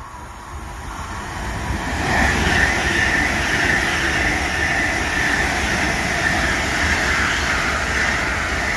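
A train approaching, growing louder over the first two seconds, then running by steadily with a low rumble and a rushing noise.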